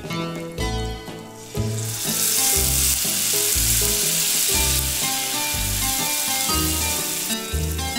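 Meatballs frying quietly in olive oil, then canned tomatoes hit the hot oil and set off a sudden, loud sizzle about one and a half seconds in that carries on and eases near the end. Background music plays throughout.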